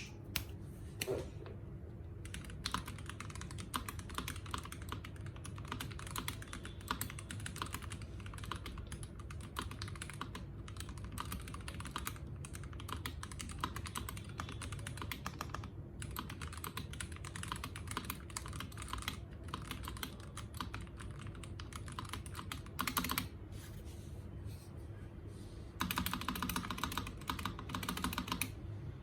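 Typing on a custom mechanical keyboard with a creamy sound: a steady run of keystrokes over a low background hum, with a brief burst of faster typing near the end.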